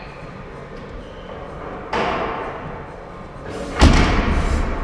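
Barbell loaded with bumper plates set down on a rubber gym floor: a thud about two seconds in, then a louder, deeper thud near the end, each dying away over about a second.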